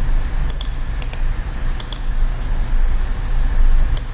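Computer mouse buttons clicking, mostly in quick pairs, three or four times, over a steady low electrical hum.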